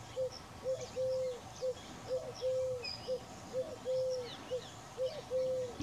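A dove cooing a repeated low phrase of short notes and longer drawn-out ones, the long note coming about every second and a half, with small birds chirping faintly higher up.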